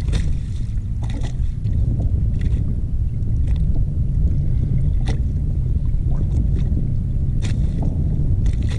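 Steady low rumble of wind and water on the microphone around a small fishing boat, with a few short sharp clicks every second or two.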